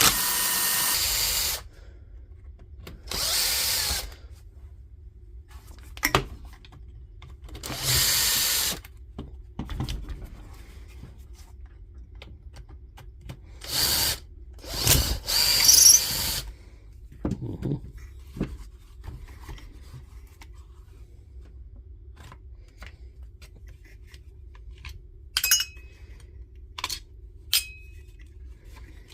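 Cordless power tool motor running in five short bursts of about a second each, the last two close together, followed by a few light clicks near the end.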